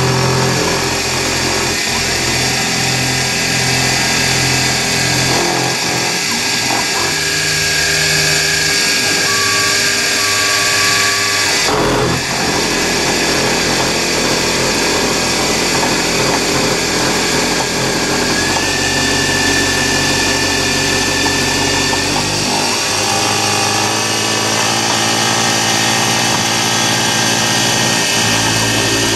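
CNC mini mill's end mill cutting into an aluminium block, a steady machine whine with the grinding of the cut. The pitch of the whine shifts a few times, with a brief sharp knock about 12 seconds in.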